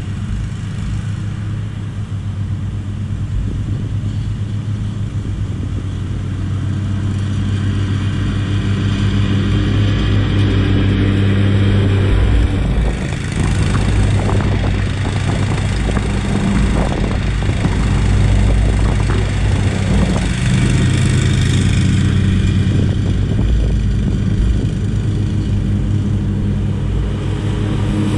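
Zero-turn riding mower's engine running steadily as it mows past, growing louder through the middle of the stretch and easing off a little near the end.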